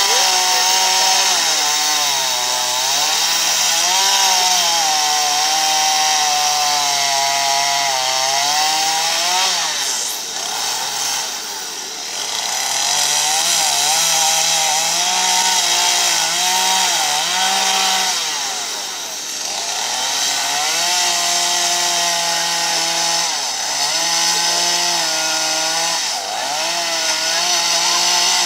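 Two-stroke carving chainsaw cutting into a wooden log, its engine note rising and falling as the cuts load and free it. It drops back briefly twice, then picks up again.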